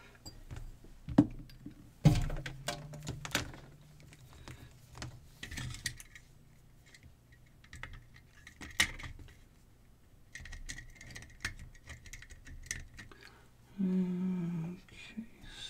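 Scattered clicks and small clatters of an opened plastic LED flashlight housing being handled on a work mat, with alligator-clip test leads being clipped onto it. The sharpest knock is about two seconds in.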